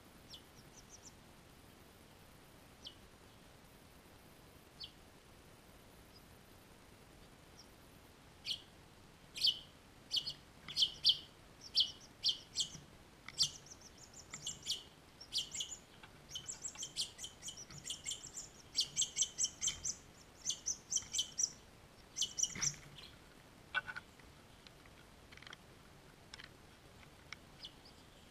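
House finch nestlings begging with rapid, high, insistent chirps as a parent comes to the nest to feed them. A few faint chirps come first; about eight seconds in, a dense run of loud chirps begins, lasts about fifteen seconds, and then thins out to a few scattered calls.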